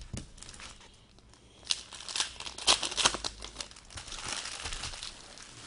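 Foil trading-card pack wrapper crinkling and tearing as it is opened, in a few clusters of short crackles followed by softer rustling near the end.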